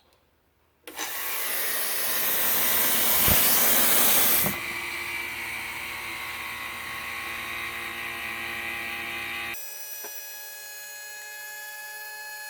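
Pressurized gas hissing into a car's air-conditioning lines to test them for leaks. The hiss starts suddenly about a second in and is loudest for a few seconds, then settles into a steadier, quieter hiss with a thin whistling tone, and thins out further near the end.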